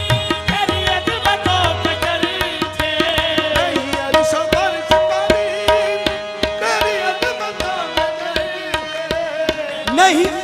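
Qawwali music: a harmonium melody over quick, regular tabla strokes, with a long held note in the middle.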